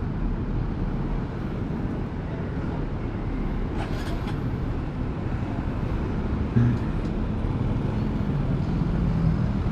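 Honda RS125 Fi motorcycle's single-cylinder four-stroke engine running, with steady low road and wind rumble; the engine tone strengthens and rises a little in the second half.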